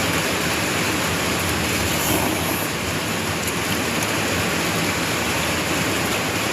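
Steady rain storm pouring down on a carport roof: a dense, even hiss and rumble that holds at one level throughout.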